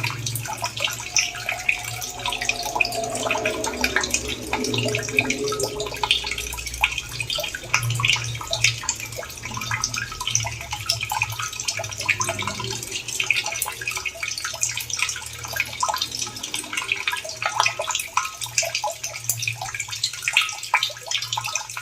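Water running and splashing, with many small irregular drips and splashes over a steady flow.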